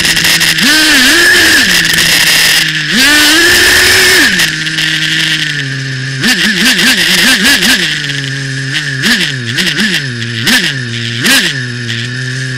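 Two-stroke nitro engine of an RC buggy, heard close up. It revs high with quick dips for the first few seconds, then drops to idle. At idle the throttle is blipped rapidly, about four times a second, and then given a few single sharp revs.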